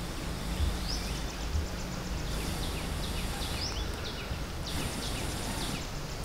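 Forest ambience: a bird calling with repeated short rising whistled notes, over bouts of high insect buzzing that start and stop every second or two, and a low steady rumble.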